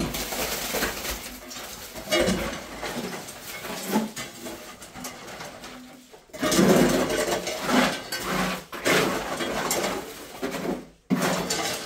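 A bird cooing repeatedly, low-pitched, over a steady hiss; the cooing is strongest in the second half.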